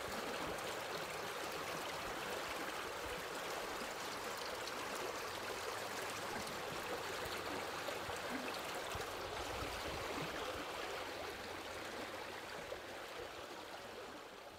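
Steady rush of flowing river water, an even wash with no distinct splashes, beginning to fade near the end.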